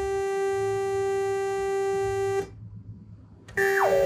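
Powertran Transcendent 2000 monosynth holding one steady, bright note from its single oscillator, which stops about two and a half seconds in. Near the end the note comes back, with a resonant filter sweep gliding down in pitch through it as the filter cutoff is turned.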